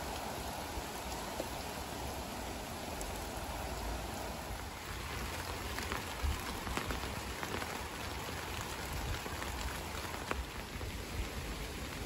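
Steady rain falling on leaves and foliage, an even hiss with scattered individual drop taps that stand out more clearly about halfway through.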